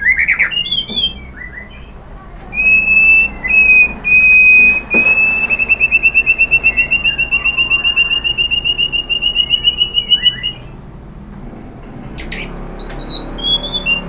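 White-rumped shama (murai batu) singing: a few quick whistled notes, then a long high whistle that breaks into a fast trill of repeated notes for several seconds, rising slightly in pitch. After a short pause it gives a burst of sharp high notes and clicks near the end.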